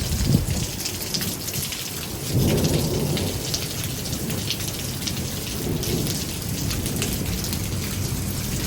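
Heavy, wind-driven thunderstorm rain pouring down, with many close drops splattering and a low rumble underneath that swells briefly about two and a half seconds in.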